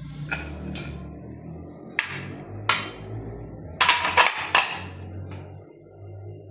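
Sharp knocks and taps on a ceiling fan's motor housing as it is worked open to get at the worn bearings: scattered single strikes, then a quick run of three or four about four seconds in, over low background music.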